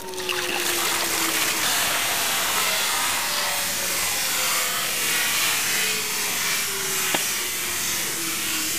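Ice water pouring from a large metal bucket and splashing over a seated man's head and shoulders, a steady rush of water with a single click about seven seconds in.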